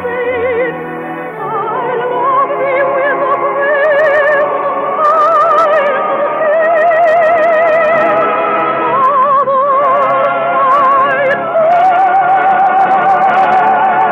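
Orchestral music from a 1950s radio musical: a slow melody of long held notes with strong vibrato, gliding from note to note and settling on a sustained note near the end.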